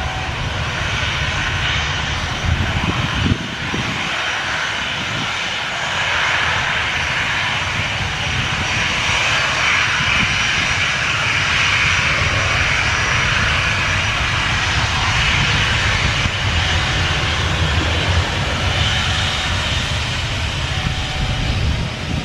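Boeing 737-800 presidential jet's CFM56-7B turbofan engines running at taxi power as it taxis and turns on the runway: a steady jet whine over a low rumble, a little louder through the middle.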